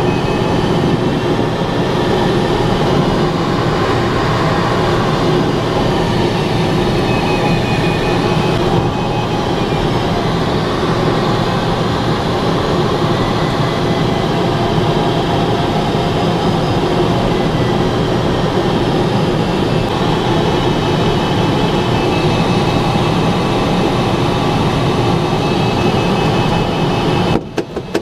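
Steady rush of air past a glider's cockpit under aerotow, with the steady drone of the tow plane's engine ahead. The sound briefly drops out near the end.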